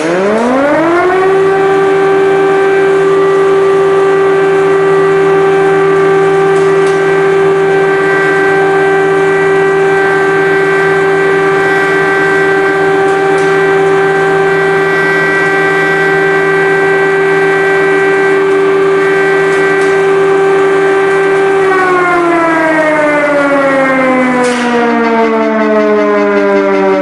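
Civil air-defence siren sounding an air-raid alert. It winds up quickly at the start, holds one steady wail for about twenty seconds, then begins to wind down in pitch near the end.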